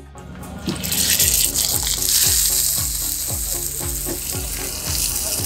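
Ribeye steak searing in oil in a cast-iron skillet: a loud, steady sizzle that swells up about a second in. Background music with a steady beat runs underneath.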